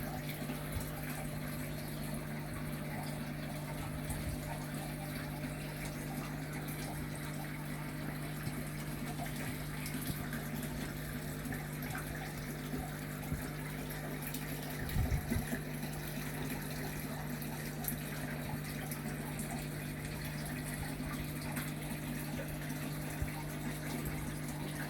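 A steady low hum over a faint hiss, with a few soft knocks about fifteen seconds in.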